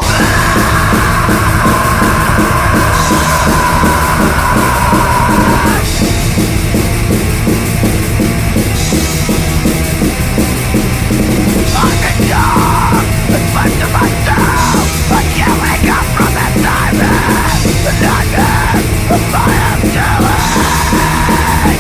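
Loud heavy punk-metal band playing guitar, bass and drums. A high note is held through the first six seconds, and a busy, bending high line runs from about halfway.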